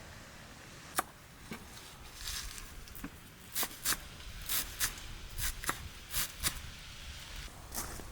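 A series of short, sharp clicks and taps at irregular spacing: one about a second in, then a quick run of them through the second half.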